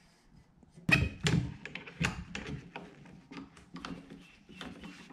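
Wooden carcass parts and bar clamps being handled and tightened during a glue-up: two loud knocks about a second in, then a run of lighter irregular clicks and knocks.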